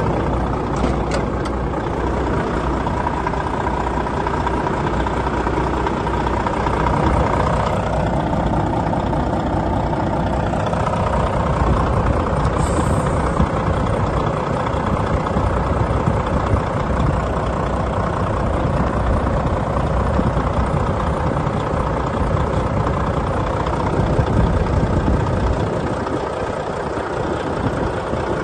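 Volvo FH13's 13-litre straight-six diesel engine idling steadily.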